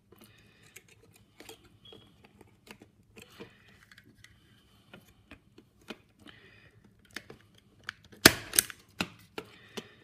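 Faint clicks and handling noise as a Cat 5 conductor is laid into a faceplate's insulation-displacement terminal, then near the end one loud sharp snap of a punch-down tool seating the wire and trimming its end, followed by a couple of lighter clicks.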